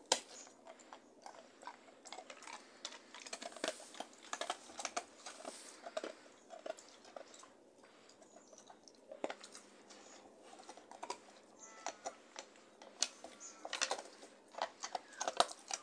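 A dog chewing and licking at a large red rubber Kong toy stuffed with a Kong treat: irregular wet smacks and small clicks of teeth on rubber, dropping off for a couple of seconds midway and busier near the end.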